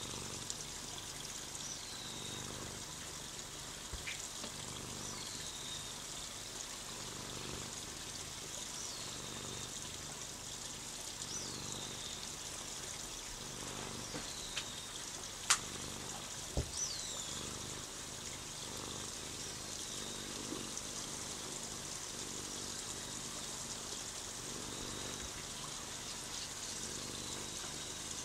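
Steady trickling, water-like background noise, with faint high falling chirps every couple of seconds and one sharp click about halfway through.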